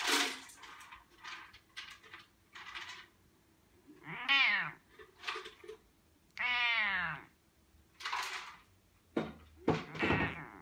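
Bengal cat giving lazy meows: two drawn-out meows, about four and six and a half seconds in, each falling in pitch at the end. Several short breathy sounds come between and around them.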